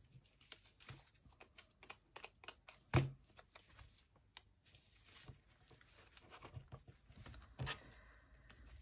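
Paper scraps being handled and shuffled on a cutting mat: soft rustling and small scattered taps, with a sharper knock about three seconds in and another near the end.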